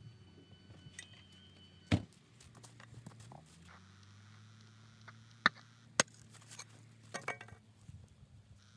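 Axe chopping into hard-packed dirt: a handful of sharp strikes spread out, one about two seconds in, two close together past the middle and a quick cluster near the end, over a faint steady low hum.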